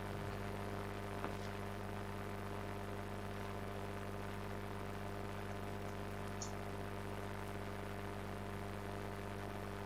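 Steady electrical mains hum, with a faint click about a second in.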